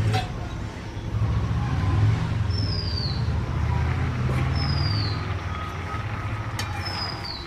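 Soaked lentils boiling hard in water in an aluminium pan over a wood fire, a steady low bubbling. A bird calls three times over it, each a short falling whistle about two seconds apart.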